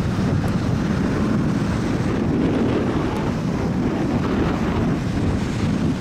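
Strong typhoon wind buffeting the camera microphone: a heavy, uneven rumble that swells and eases with the gusts.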